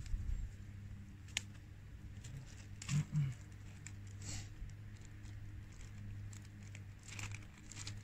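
Wood campfire crackling, with scattered sharp pops, over a steady low hum. Two soft low thumps close together about three seconds in are the loudest sounds.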